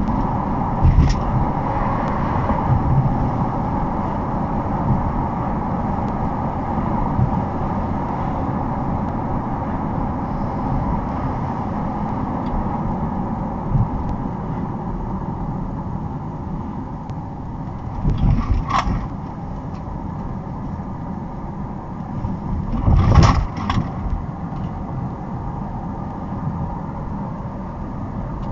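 Car driving at speed, heard from inside the cabin: steady engine and tyre noise, with a few brief louder bumps about two-thirds of the way through and again a few seconds later.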